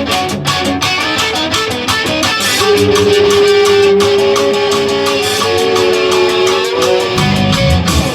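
Rock band music led by electric guitar over a steady drum beat, with a long held note through the middle that steps up in pitch partway through.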